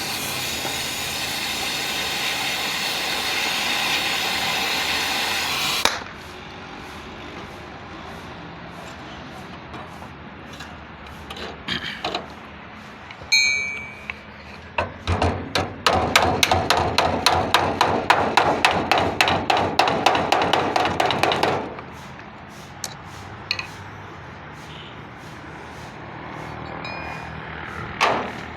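Workshop welding: a loud, steady crackling hiss for about six seconds that stops suddenly. After some quieter shop noise comes a fast, even run of sharp taps, about five a second, lasting some six seconds.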